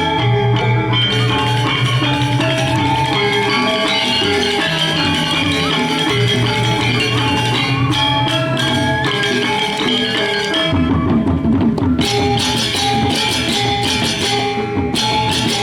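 Balinese gamelan playing the music for a dance: struck bronze metallophones ringing in interlocking patterns over drums. About eleven seconds in the playing turns denser and brighter, with quicker strokes.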